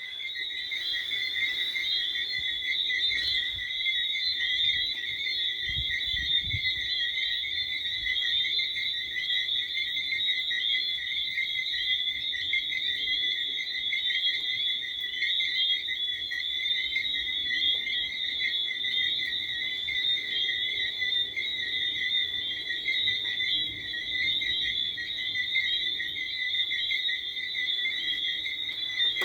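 Tree frogs calling in a dense, unbroken chorus, a steady high pulsing trill.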